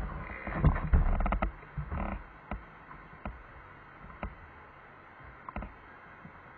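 Street traffic at a junction: a low rumble from passing vehicles in the first two seconds, mixed with several sharp clicks, then a quieter background broken by a few single clicks.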